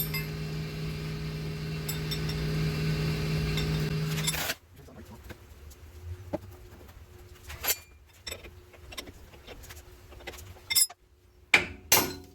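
A small motor, most likely a power tool, runs steadily for about four and a half seconds and stops abruptly. Several sharp metallic clinks of tools being handled follow.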